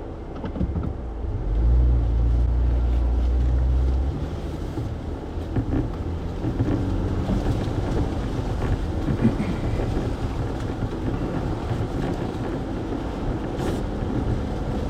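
Jeep Wrangler engine running as it crawls along a rough trail. A louder, steady low drone comes from about one and a half to four seconds in, as the transfer case is shifted out of four-wheel-drive low, then the engine settles to a steadier, quieter rumble.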